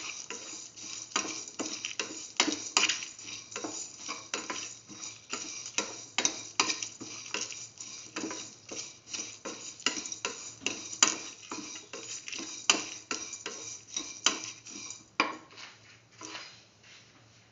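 Black spatula scraping and knocking against a steel pan while stirring chopped onions and spice seeds, two or three strokes a second. The stirring stops shortly before the end.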